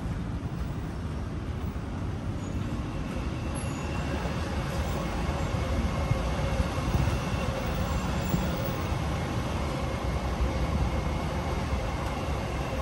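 Train running on nearby tracks: a steady low rumble, with a faint whine coming in about four seconds in.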